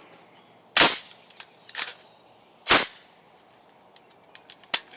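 Head Down HD15 AR-15 rifle firing 5.56 rounds: two loud shots about two seconds apart, with fainter sharp cracks between them and near the end.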